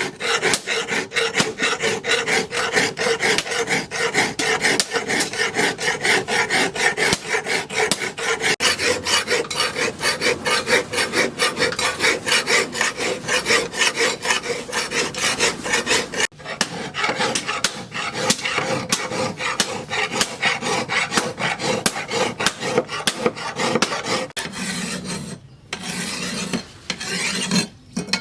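Rapid back-and-forth rasping strokes of a hand abrasive tool on a steel knife blade, several strokes a second, with a few short pauses near the end.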